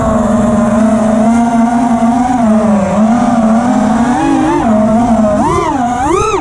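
Brushless motors (T-Motor F60 Pro IV) and 5-inch tri-blade propellers of an FPV quadcopter whining in flight. The pitch wavers with the throttle, then rises and falls in two big swoops near the end.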